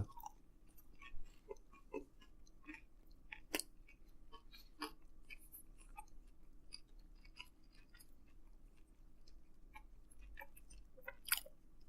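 Faint mouth sounds of a person chewing a cheesy pizza sandwich: soft, irregular wet clicks and smacks, with a few louder ones scattered through.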